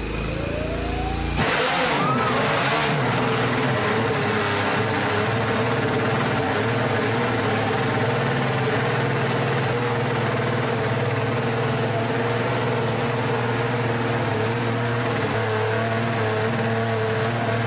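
1966 Honda RC166 250cc six-cylinder race engine being started on a roller starter. It catches about a second and a half in with a quick rev, then runs steadily and evenly through its megaphone exhausts.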